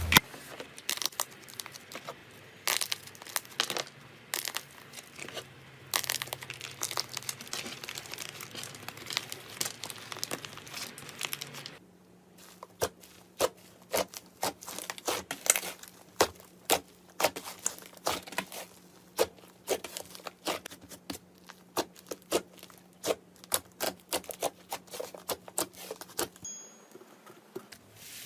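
Slime being squeezed, pressed and stretched, giving a dense, irregular run of crackles and small sharp pops as air pockets in it burst.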